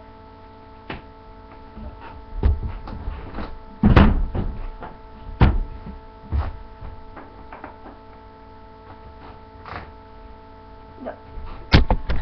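Handling noise: scattered knocks and thumps as a T-shirt is moved about close to the microphone, the loudest about four seconds in, over a steady electrical hum.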